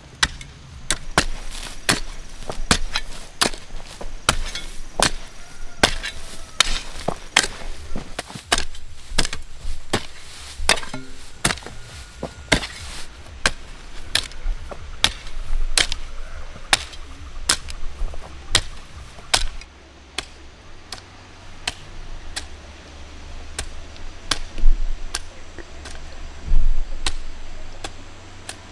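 Repeated chopping with a blade, sharp strikes at about two a second. About two-thirds of the way through the strikes thin out, and two heavier knocks come near the end.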